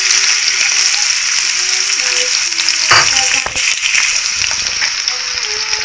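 Sliced onions sizzling steadily in hot oil in a karahi, just after going into the pan. There is a short knock about three seconds in, and a second one just after.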